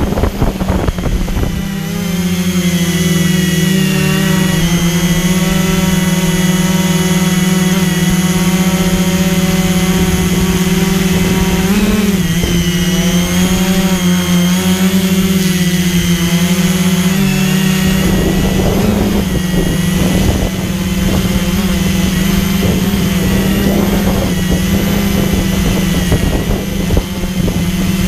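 Multirotor drone's motors and propellers humming steadily, a low hum under several high whines, with a slight wobble in pitch about twelve seconds in. From about eighteen seconds in the lower tones thin out and the sound turns rougher.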